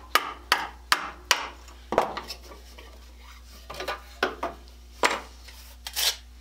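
A pin punch tapped about five times, roughly two taps a second, driving a saw nut out of a handsaw's wooden handle. From about four seconds in come a few lighter clinks and knocks as the loosened metal parts and the handle are handled.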